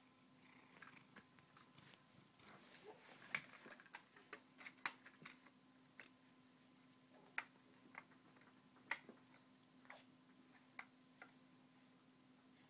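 Scattered light clicks and taps of plastic toys on a baby's exersaucer being handled, coming in irregular clusters, over a faint steady hum.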